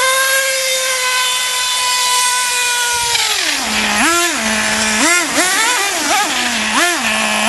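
Traxxas T-Maxx 2.5 nitro RC truck's small single-cylinder two-stroke glow engine held at a high, steady whine for about three seconds, then dropping to a lower idle and blipped up in short revs about once a second.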